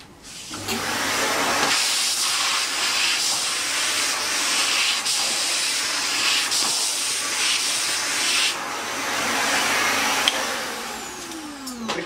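Kärcher AD 4 Premium ash vacuum running and sucking spilled water off a tiled floor through its floor nozzle. It is switched off near the end, and the motor winds down with a falling whine.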